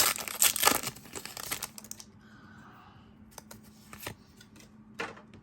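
Foil wrapper of a Pokémon booster pack crinkling and rustling as it is opened, for about two seconds. A few faint clicks follow as the cards are handled.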